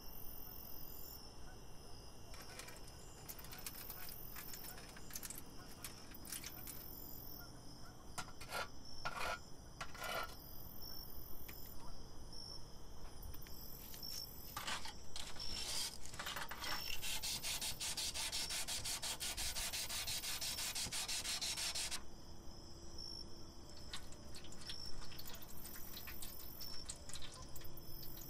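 Hands rubbing and scrubbing the rusty metal parts of an antique hand food press, with scattered clicks and light knocks. Around the middle there is a dense, steady stretch of rapid scraping that lasts about five seconds.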